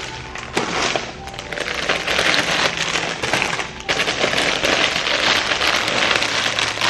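Dense, loud crackling that runs on for several seconds, with a short break about four seconds in.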